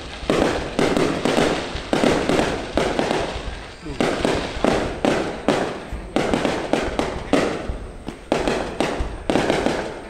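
Aerial firework shells bursting overhead in rapid succession, about two loud bangs a second, each trailing off in a rumble before the next.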